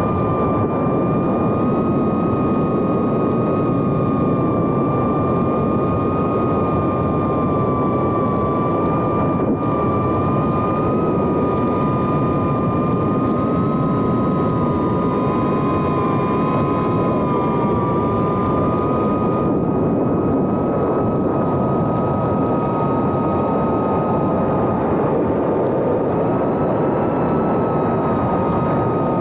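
2.5-inch FPV whoop drone in flight, recorded on board: its Happymodel 1404 3500kv brushless motors and propellers whine at a fairly steady, slightly wavering pitch over a heavy rush of prop wash and wind.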